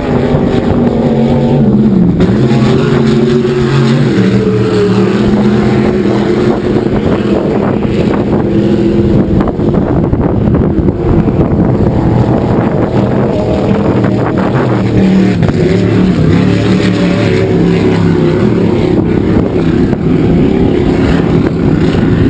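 Racing powerboat engines running at speed offshore, a loud continuous engine drone whose pitch wavers and shifts as the boats run past.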